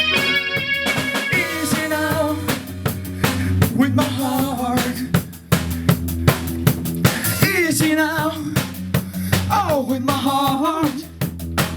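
A rock band playing live, with drum hits keeping a steady beat under guitar and sliding melodic lines.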